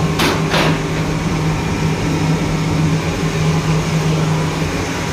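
Diesel bhatti burner running with a steady, loud blower drone and a low hum. Near the start there are two short sharp noises about half a second apart.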